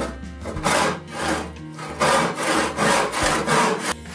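Handsaw cutting through a wooden board in regular back-and-forth strokes, about two a second.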